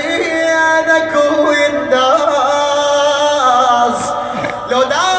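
A man's solo voice chanting a Husseini mourning elegy, drawing out long held notes that waver and slide in pitch.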